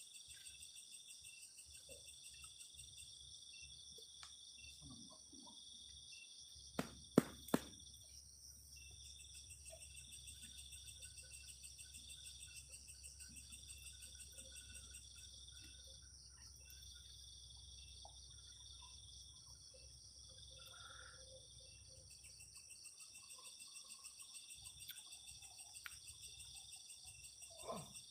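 Night insect chorus: crickets trilling steadily in fast high-pitched pulses. Three sharp clicks come close together about seven seconds in.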